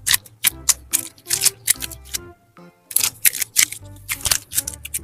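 Quick clusters of crisp clicks and crackles from slime being worked by hand, with a short lull about halfway through, over background music with sustained notes.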